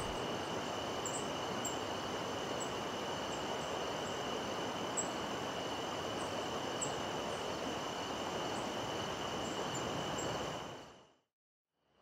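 Rainforest ambience: a steady, high-pitched insect drone over a soft hiss, with short high chirps every second or so, fading to silence near the end.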